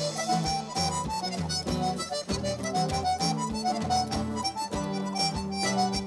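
A live Irish traditional reel played by a trio. An accordion carries the fast melody over strummed guitar, and a drum kit keeps a steady beat.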